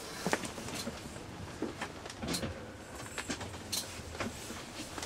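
Irregular knocks and clicks of someone moving about inside a sailing yacht's cabin, about one every half second to second, over a low steady hum.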